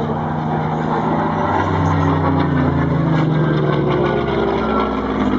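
Messerschmitt Bf 109's piston engine running at power as the fighter dives and pulls out overhead. Its pitch sinks a little in the middle as it passes.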